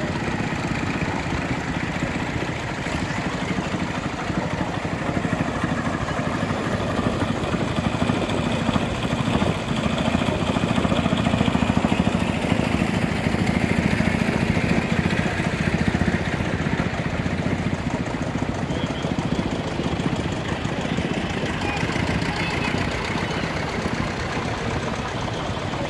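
Engines of a procession of vintage farm tractors running at low speed as they drive past one after another, a steady hum that grows louder through the middle stretch as the nearest tractors pass close.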